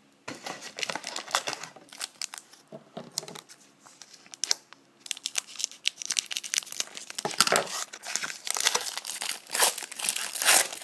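Plastic trading-card pack wrapper crinkling and being torn open by hand, an irregular crackle that grows busiest near the end.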